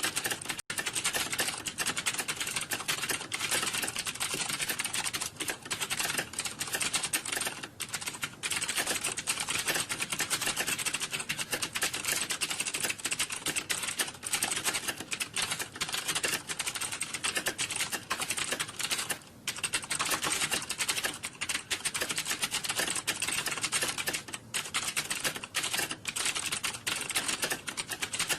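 Computer keyboard typing: a dense, continuous clatter of keystrokes with hardly a pause.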